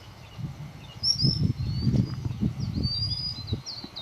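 Songbirds chirping and singing in a chorus of short, high, repeated notes that grow busier in the second half, over an uneven low rumble of gusts.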